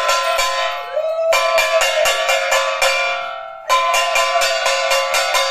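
Brass puja bell rung rapidly during worship, several strokes a second, in runs that break off about a second in and again about three seconds in, leaving the metal ringing and dying away before the strokes start again.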